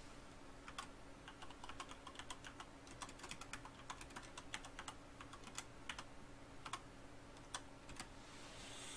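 Typing on a computer keyboard: a run of faint, irregular key clicks.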